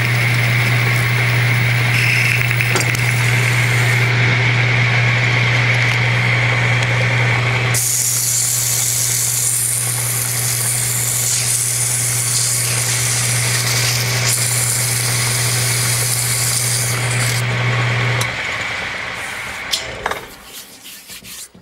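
Metal lathe running with a steady hum while a cutting tool plunges into the face of a spinning metal pulley. About eight seconds in, the cutting sound gives way to sandpaper hissing against the spinning face. Near the end the lathe is switched off and runs down.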